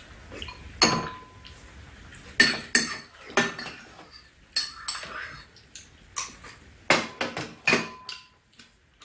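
Metal spoons and chopsticks clinking against ceramic bowls during a meal: about ten sharp clinks at irregular intervals, one leaving a brief ring.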